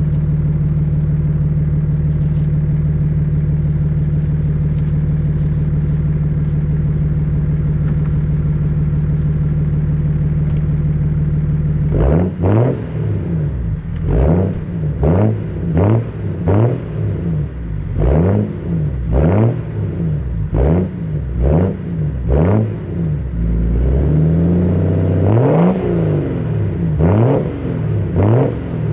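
BMW E38 730d's 3.0-litre inline-six diesel through a straight-piped dual exhaust, idling steadily at first. About halfway through it is blipped repeatedly: a quick run of short revs, each rising and falling, roughly one a second, with one longer rev near the end.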